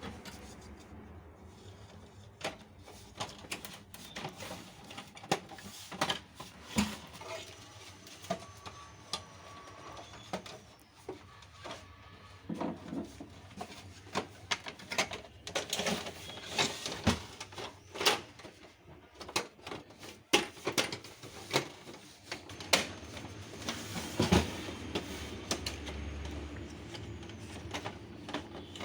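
Irregular clicks and knocks of a Canon LBP 2900 laser printer being handled by hand, its parts being worked on during repair.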